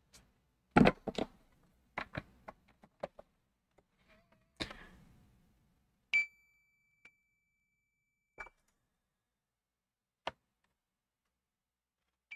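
Clicks and taps of test probes and tools against the circuit board, the loudest about a second in. About six seconds in, a multimeter's continuity beeper gives a steady high beep for about two seconds as the probe tip sits on a pad, and it starts again at the very end. The beep is the sign of a low-resistance path between the probes.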